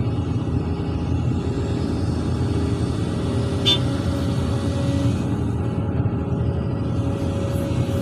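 Excavator's diesel engine running steadily under load as the bucket swings over a dump truck and tips wet soil into its bed, with a single sharp click a little past halfway.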